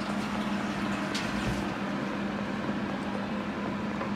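Steady mechanical hum with a rushing, airy noise over it, and a brief hiss about a second in.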